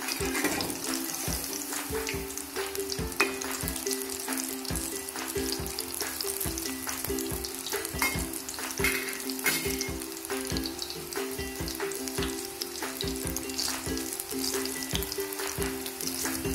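Bread pakoras deep-frying in hot oil in a steel kadhai: a steady crackling sizzle full of small pops. Now and then a perforated steel ladle stirs and turns them in the oil.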